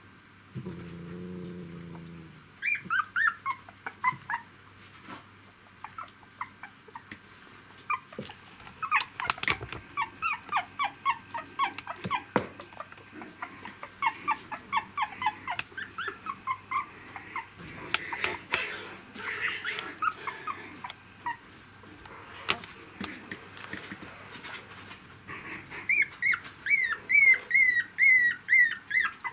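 Three-week-old poodle puppies whimpering and squeaking in quick series of short, high cries that fall in pitch, with the loudest, fastest run near the end.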